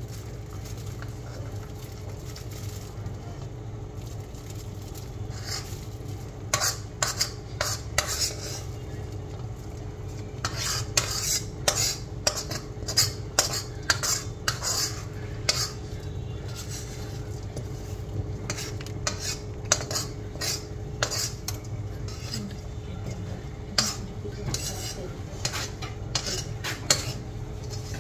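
A metal spoon scraping and clinking against a steel kadhai as rice is scraped out of it, in irregular clusters of knocks starting about five seconds in, over a steady low hum.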